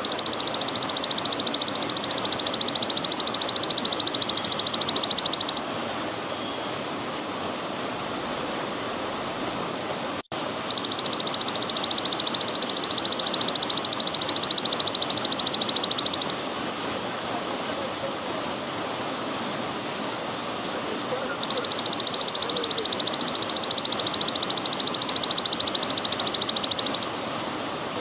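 Belalang emas (golden grasshopper) singing in three loud, high, fast-pulsed buzzing trills of about five to six seconds each, with pauses of about five seconds between them. Steady trickling water runs underneath throughout.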